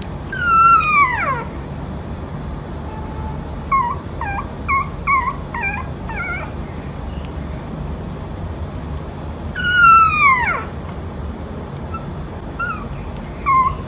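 A dog whining and whimpering: two long high whines that slide down in pitch, about nine seconds apart, with a run of short high yips between them and a few more near the end.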